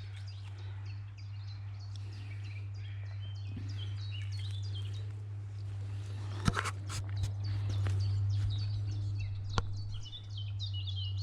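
Several small woodland birds singing and chirping, short repeated notes throughout, over a steady low rumble, with a couple of sharp cracks a little past halfway and near the end.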